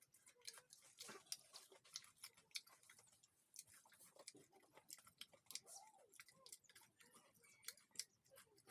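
Close-up chewing of crispy fried snacks: faint, irregular crunches and mouth clicks.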